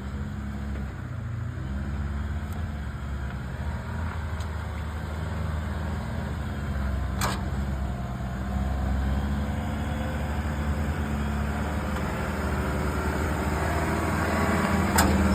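Suzuki Jimny JB23's small three-cylinder turbo engine running at low revs while crawling off-road, growing louder towards the end, with two sharp knocks, one about halfway and one near the end.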